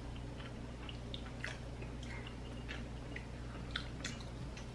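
Faint chewing and small scattered clicks of people eating at a table, over a low steady hum.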